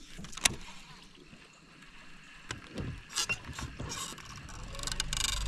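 Light mechanical clicks and ticks from a baitcasting reel and rod being handled, with a sharp click about half a second in. A low rumble builds near the end.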